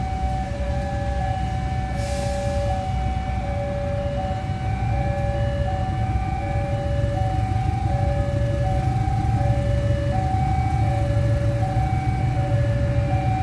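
Level crossing warning alarm sounding two tones that alternate about every three-quarters of a second, over the low rumble of a CC206 diesel-electric locomotive that grows louder as it pulls away with its train. A brief hiss comes about two seconds in.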